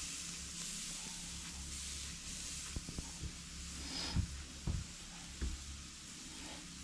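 Tomahawk steak searing on a charcoal grill grate over hot coals: a steady sizzling hiss. A few soft knocks come about halfway through.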